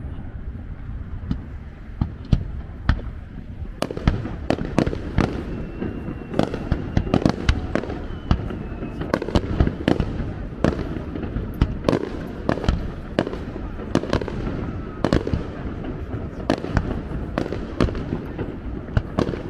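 Fireworks display: sharp cracks and bangs over a steady low rumble, sparse at first and then coming thick and fast from about four seconds in.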